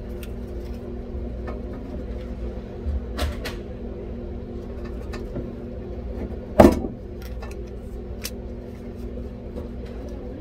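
Small handling clicks and knocks of hand tools on refrigeration wiring, with one sharp snap a little past halfway as wire strippers close on a wire, over a steady machine hum.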